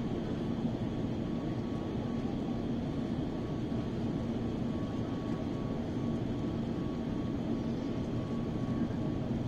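Steady cabin noise inside an Airbus A350 on approach for landing: the hum of its Rolls-Royce Trent XWB engines and rushing airflow over the fuselage, with a low steady hum and a faint high whine running through it.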